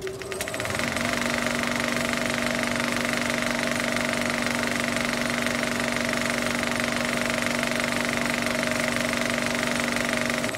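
Steady, loud buzzing rattle with a held hum, a low tone joining about a second in, cutting off abruptly at the end: a sound effect under an animated logo intro.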